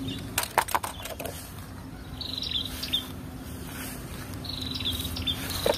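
Plastic toy cement mixer truck clattering into a plastic basket among other plastic toy cars: several quick clicks and knocks in the first second or so. After that, short high chirps repeat every second or two in the background.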